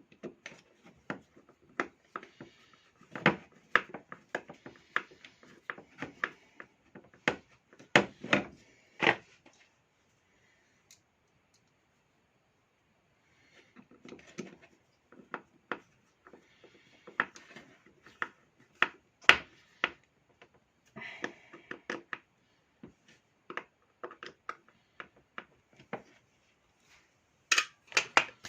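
Irregular clicks, knocks and scraping as tools and the plastic and metal parts of a Makita electric chainsaw are handled during disassembly. There is a hushed pause of a few seconds about a third of the way in.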